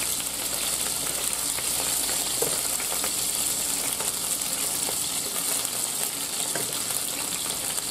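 Chicken legs browning in a frying pan of hot grease: a steady sizzle with the grease popping in small, scattered crackles.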